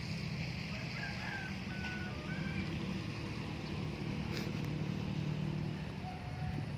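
A steady low motor hum, with a few short high whistled notes about a second or two in and a single click a little past the middle.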